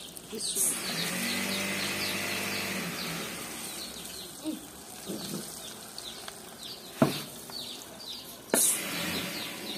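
Chickpea-and-potato kababs sizzling in hot oil in a frying pan as they are slid in one by one; the sizzle is strongest in the first few seconds. A sharp knock comes about seven seconds in, and a second sharp knock about a second and a half later brings a fresh burst of sizzling. Small birds chirp throughout.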